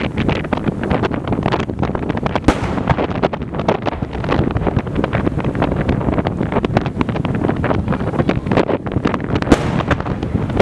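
Fireworks display in full barrage: a dense, continuous crackle of many shell bursts in quick succession, with a few heavier bangs standing out, about two and a half seconds in and near the end. Wind buffets the microphone underneath.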